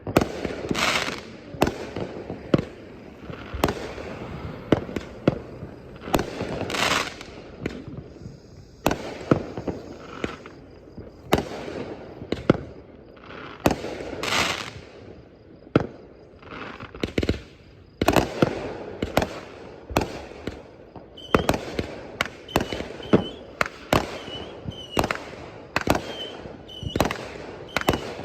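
Fireworks going off: a long irregular string of sharp bangs and pops, some with a longer hissing rush. In the last third the pops come faster, each with a short high chirp.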